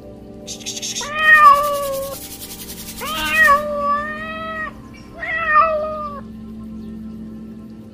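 Domestic cat, orange and white, meowing three times in long drawn-out calls, each a second or more.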